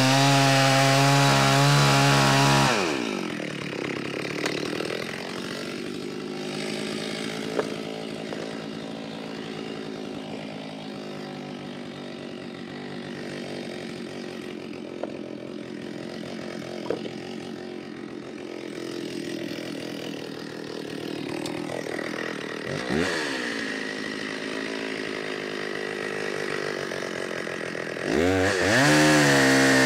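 Gas chainsaw at full throttle cutting through a log, then let off about three seconds in, its pitch falling away to a steady idle with a few light knocks. A quick blip of the throttle comes a little past the middle, and near the end it revs back up to full speed to finish the cut with the top of the bar after the log has been rolled.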